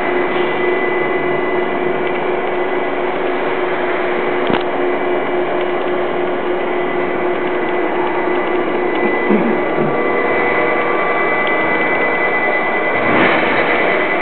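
Gondola hoist running steadily as the gondola is lowered: a dense mechanical noise with a steady hum and a high whine over it. A single click about four and a half seconds in.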